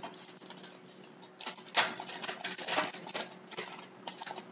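Trading cards being slid and flipped through by hand, a run of irregular scratchy rustles, the loudest about two seconds in.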